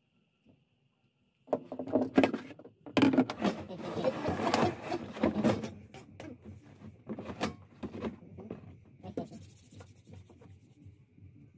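Hollow plastic buckets knocking and scraping on a tabletop as they are handled and shuffled. There is a dense run of knocks and rubbing a second or two in, then scattered lighter knocks.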